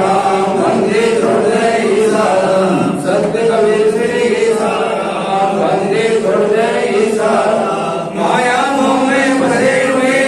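Devotional chanting by a group of voices, sung continuously on long held notes.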